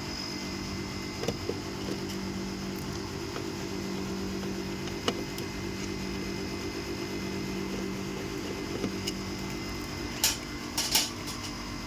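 Air-conditioning equipment running with a steady mechanical hum. Scattered sharp clicks and knocks cut through it, the loudest pair near the end.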